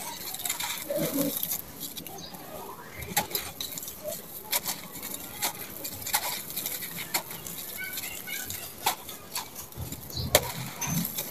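Hands crushing and crumbling a dry sand-cement block: irregular gritty crunching and crackling with scattered sharp snaps, and grit falling onto a sand pile. The loudest snap comes near the end.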